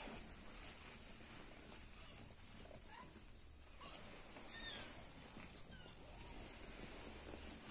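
Young kittens giving faint, high-pitched mews: a few short cries, the loudest about four and a half seconds in.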